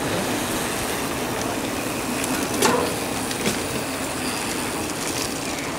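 A stream of mountain bikes rolling over a cobblestone path, tyres and frames rattling steadily on the stones, with a couple of sharp clicks from about two and a half seconds in.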